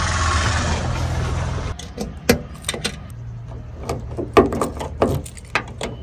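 A bunch of keys jingling, and a key clicking and rattling as it goes into and turns in the cab door lock of a Tata tipper truck. Before it, a loud steady hiss over a low hum cuts off abruptly about two seconds in.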